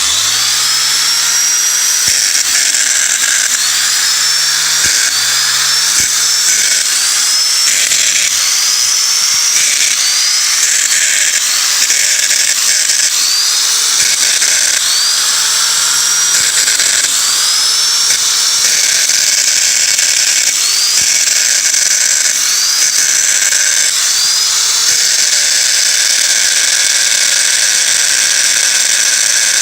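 Small angle grinder (a 'baby sander') switched on and running with an abnormal noise: over its high running noise a rising whine repeats about once a second, then settles to a steadier sound near the end. The noise comes from a fault; the grinder is broken.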